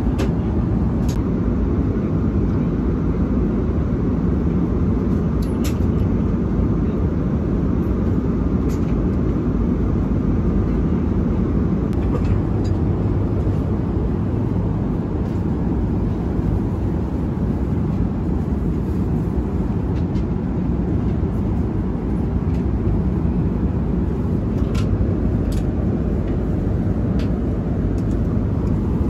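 Jet airliner cabin noise in flight: a steady low rumble with a few faint clicks scattered through it.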